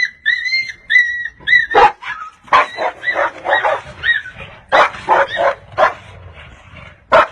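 A dog yipping and barking in quick succession: a string of high, arched yips at first, then a run of rougher barks, and one sharp bark near the end.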